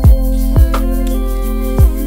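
Background music: a slow electronic beat with deep kick drum hits, three in two seconds, under held keyboard notes.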